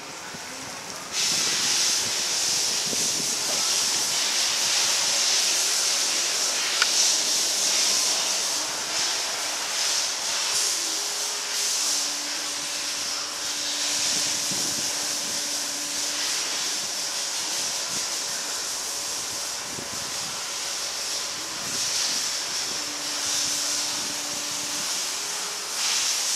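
Bendi BE420 electric articulated forklift's electric motors and hydraulics running: a steady high hiss that starts abruptly about a second in, with a low hum that comes and goes twice as the truck and its mast are worked.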